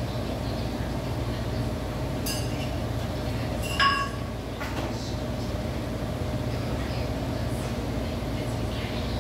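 Two metallic clinks that ring on briefly, about two seconds in and a louder one near four seconds in: iron weight plates knocking together as they are moved on a plate storage peg. A steady low hum lies underneath.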